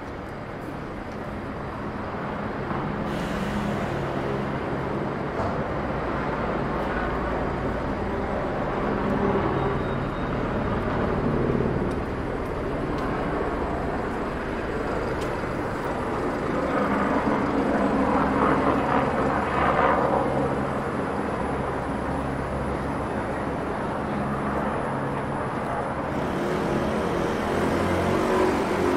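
City street traffic: motor vehicle engines running with a steady low hum, swelling louder twice as vehicles pass.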